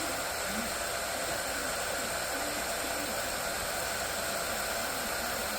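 Handheld blow dryer running steadily with a constant whooshing hiss.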